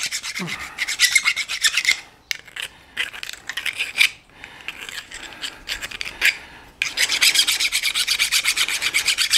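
Hand file rasping back and forth across the cut end of a short 3/4-inch brass pipe nipple, smoothing its sharp edge so it won't cut the rubber seal of the water heater supply line. The strokes are quick and even for the first two seconds, sparser through the middle, and quick again from about seven seconds in.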